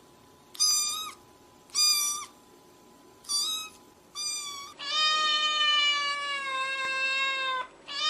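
Kitten meowing: four short high-pitched meows about a second apart, then one long drawn-out meow, lower in pitch and falling slightly, lasting about three seconds.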